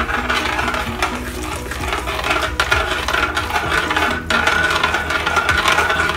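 Metal spatula stirring and scraping in a metal wok, with many quick clinks over a steady hiss, as cornstarch slurry is stirred into the boiling gravy to thicken it.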